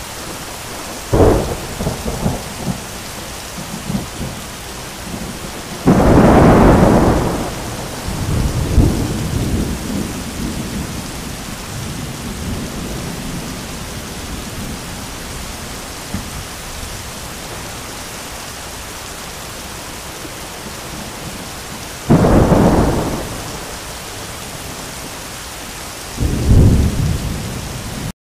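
Heavy rain pouring steadily, with repeated thunder: a sharp crack about a second in followed by rumbling, a long loud clap around six seconds in with more rumbling after it, and two more claps near the end.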